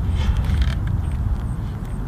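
Uneven low rumble of wind buffeting the microphone, with a few short scuffs of sneakers turning on the concrete throwing circle in the first second.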